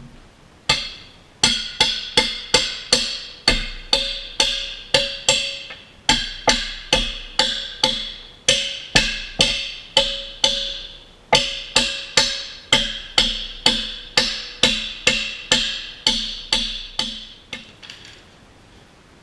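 Hammer striking steel about twice a second, each blow ringing briefly, in runs broken by short pauses. The blows are on a stuck hydraulic cylinder, to break it loose with a homemade turning tool.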